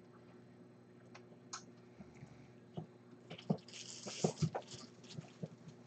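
Light clicks and taps of small plastic phone parts being handled, with a brief crinkle of a plastic bag about four seconds in.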